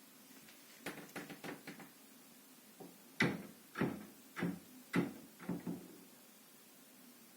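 Wardrobe door knocking against its frame: a quick run of light taps about a second in, then six louder knocks over the next three seconds.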